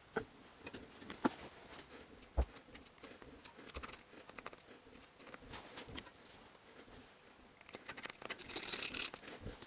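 Scattered light metal clicks and taps as a brake caliper clamped in a small vise is handled and tools touch it. About eight seconds in there is a second or so of dense scratchy scraping at the caliper.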